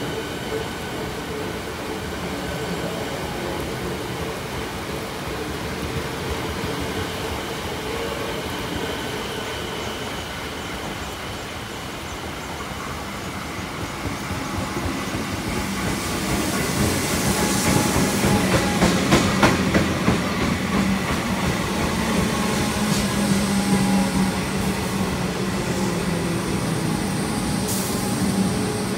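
Electric suburban train at a station platform: a steady hum with faint whining tones, then a train drawing in alongside that grows louder from about halfway, its wheels rattling over the rails, with a sharp click near the end.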